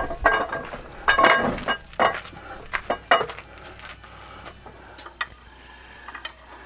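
Steel camshaft of a Cummins ISX single-cam engine being slid out of the block by hand, clinking and knocking metal on metal against the cam bores. There are several sharp ringing knocks in the first three seconds and lighter clicks later.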